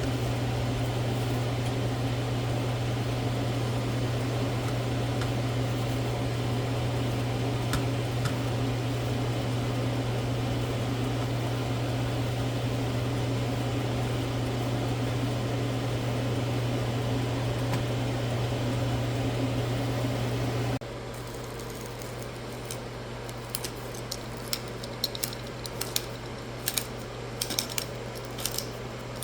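Steady electric hum of a kitchen appliance running, cutting off abruptly about two-thirds of the way through. Light clicks and clinks follow near the end.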